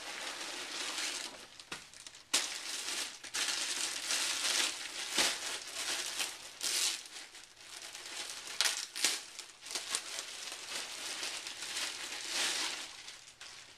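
Clear plastic packaging bag crinkling in irregular bursts as a folded jiu-jitsu gi is handled and pulled out of it, dying down near the end.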